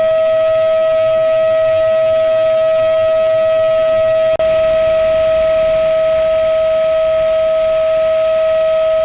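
Electric ducted-fan jet of a radio-controlled F-22 model running at steady high throttle: a loud, steady whine over a rushing hiss, with a momentary break about four seconds in.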